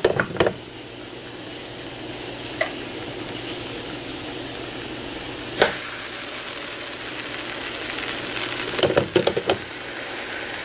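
Steady sizzling hiss from an electric sandwich grill as a sandwich is roasted in it, with a few sharp knocks as the sandwich is set on the ribbed plate and a short clatter near the end as the lid is brought down.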